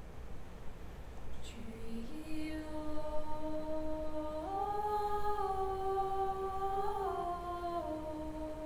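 Youth choir humming a slow opening line in long held notes on one melody. The pitch steps up about halfway through and back down near the end.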